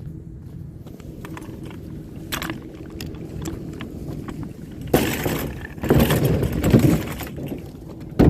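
A vehicle running with a steady low hum, broken from about five seconds in by two seconds of loud clattering and rattling, with a sharp knock at the very end.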